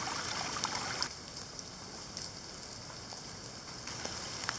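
Rain falling on puddles and shallow flowing runoff: a steady hiss with scattered drop patter. The hiss thins for a few seconds in the middle.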